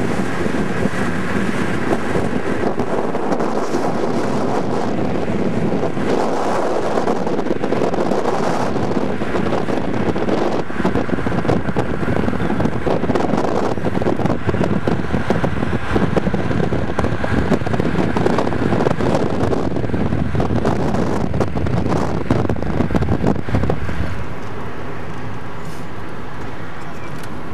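Wind buffeting the camera microphone over the road noise of a moving car, in irregular gusts; near the end the buffeting eases to a steadier drone.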